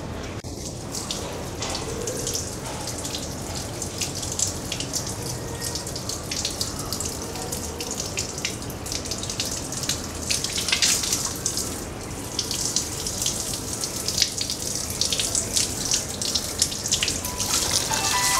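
Steady hiss of water with many small irregular pattering ticks, getting busier and a little louder in the second half.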